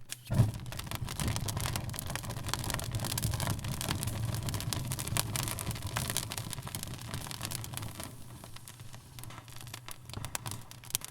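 Audience applause, a dense patter of many hands clapping that thins out over the last few seconds, with one sharp thump about half a second in.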